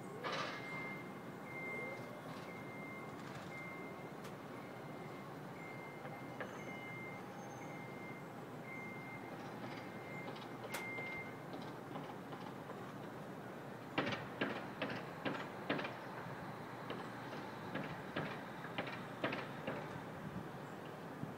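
Early-morning construction noise from across a street: a reversing alarm beeps about every three-quarters of a second for the first ten seconds or so. From about fourteen seconds in comes a run of sharp, irregular bangs, the loudest sounds here, over a steady city hum.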